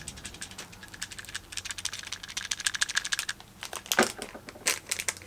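Small plastic Sweet Pea Unicorno figure being handled and its pea pod worked open: a quick run of light plastic clicks and taps for about three seconds, then a few sharper clicks near the end.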